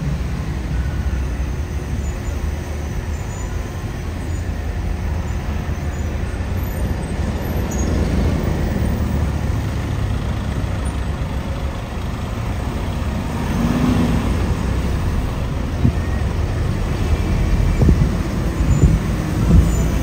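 Steady low outdoor rumble with a few louder thumps near the end.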